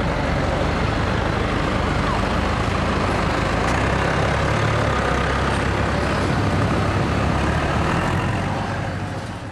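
Diesel engines running steadily, from a Dodge Ram diesel pickup and a John Deere farm tractor, a low rumble under a noisy top. The sound fades away near the end.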